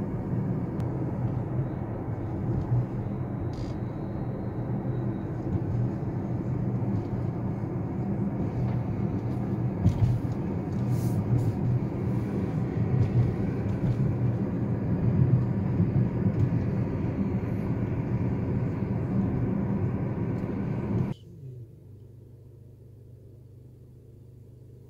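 Steady road and tyre noise with engine rumble inside a moving car's cabin. About 21 s in it drops abruptly to a much quieter, steady low hum.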